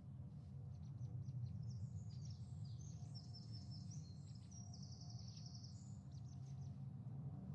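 Recorded birdsong, a run of high chirps and a fast trill, over a steady low hum. It is the birdsong that Big Brother's live feed plays in place of the housemates' muted audio.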